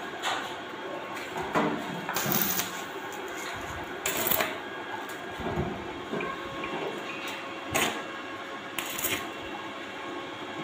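Arc welding on sheet steel: the electrode's arc crackling and sizzling steadily, with several sharper pops.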